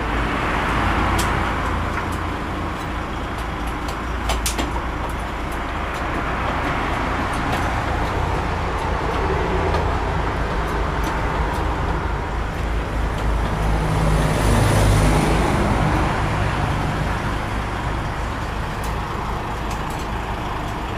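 Steady highway traffic noise from vehicles driving past, with a louder stretch about fourteen seconds in.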